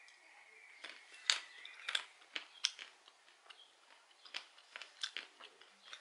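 A mouthful of roasted peanuts being chewed: a run of irregular sharp crunches, the loudest about a second in and again near the end.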